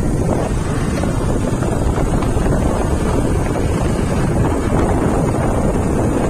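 Loud, steady wind rumble buffeting a phone's microphone while riding pillion on a moving motorcycle, with the ride's engine and road noise blurred into it.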